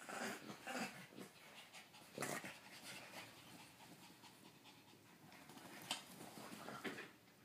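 Dogs panting during rough play-wrestling, with a few short, sharp noisy bursts, a cluster in the first second, one about two seconds in and two near the end.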